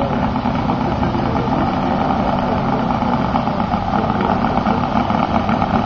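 Robart R780 seven-cylinder radial model aircraft engine running steadily at idle as the model taxis on the runway.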